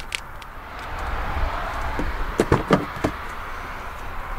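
Rear door of a 2014 Audi A3 Sedan being handled and shut: a quick cluster of knocks and clunks about halfway through, the loudest near the end of it, over a steady outdoor background hiss.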